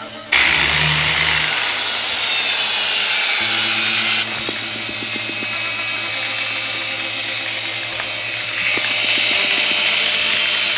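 Kawasaki variable-speed angle grinder running a 50-grit sanding disc over a wet concrete countertop, its high whine shifting about four seconds in and again near the end.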